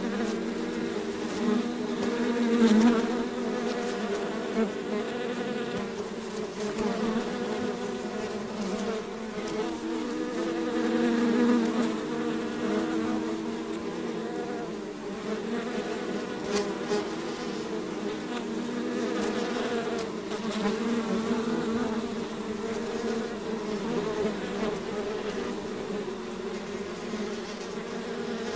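Many bees buzzing together: a steady, dense drone made of many wavering pitches that swells and eases slightly in loudness.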